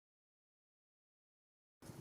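Silence: the sound track drops out completely, with faint room noise coming back near the end.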